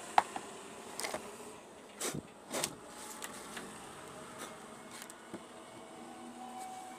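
Handling noise from a small circuit board being moved and set down on a wooden workbench: a sharp click just after the start, a few light knocks, and two short scrapes around two seconds in, over a faint steady hum.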